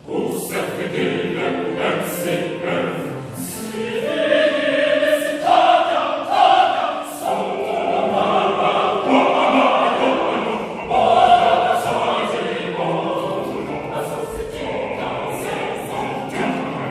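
A choir singing together, growing louder about four seconds in.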